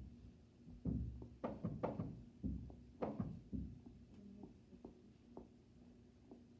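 A quick run of knocks and thumps from objects being handled and set down, about ten in the first three and a half seconds, then only a few faint taps.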